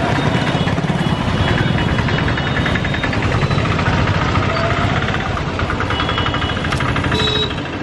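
Small motor-vehicle engines running close by in street traffic, with a rapid, rough knocking beat.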